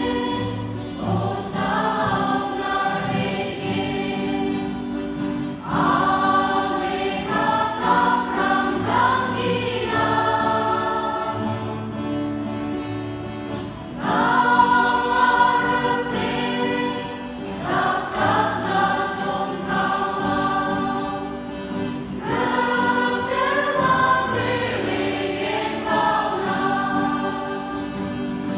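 A mixed choir of women and men singing a hymn together in sustained phrases of a few seconds each.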